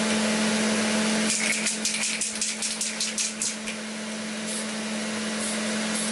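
Quick run of short hissing bursts from a Mr. Super Clear Matte aerosol can, about five a second for a couple of seconds, with a few fainter puffs later, as matte clear topcoat goes onto a model part. Under it an exhaust fan hums steadily.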